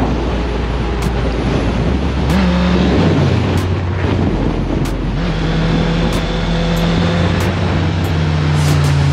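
Motorcycle engine running under way, with wind noise on the microphone; the revs rise and drop back briefly about two seconds in, then hold steady from about five seconds in.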